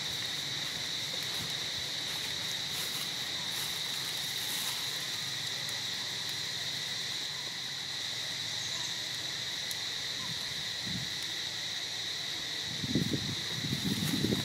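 Steady, high-pitched drone of insects in the surrounding forest, with a few low rustling thumps near the end.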